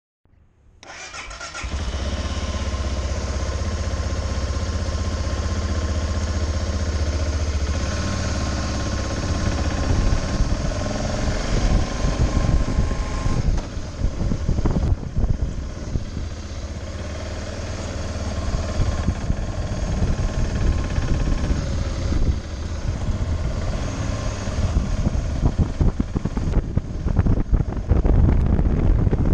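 BMW G650GS single-cylinder motorcycle engine coming to life about a second in and running steadily at idle. After about 13 seconds it pulls away and accelerates, with gusty wind noise on the microphone growing toward the end.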